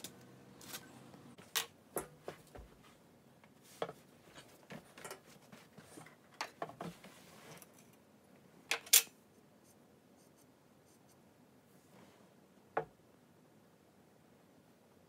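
Small handling noises: scattered clicks, taps and light scraping, busiest in the first half, with two sharp clicks close together about nine seconds in (the loudest) and a single click near the end.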